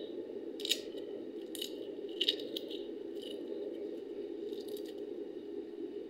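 Homemade deep-fried potato chips crunching and crackling as they are crushed and broken in a hand: a string of sharp crunches, the loudest about a second and two seconds in. A steady low hum runs underneath.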